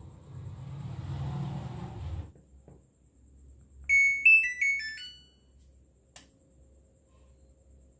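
Samsung front-load washing machine's control board playing its short electronic power-off tune, a quick run of beeping notes stepping up and down in pitch about four seconds in, as the machine is switched off. Before it, a low hum lasts about two seconds.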